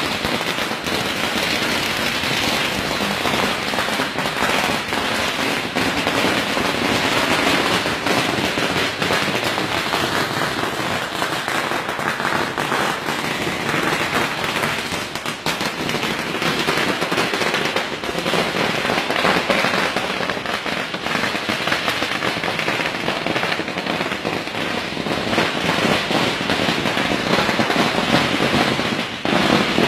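A long string of firecrackers going off in a continuous, rapid crackle of pops, with brief dips about halfway through and near the end.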